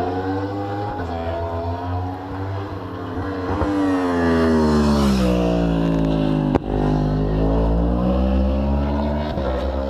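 Superbike racing motorcycle at full throttle, its engine note climbing as it accelerates towards the microphone, then dropping steadily as it speeds past, with the peak about five seconds in. A sharp knock sounds a little after six and a half seconds.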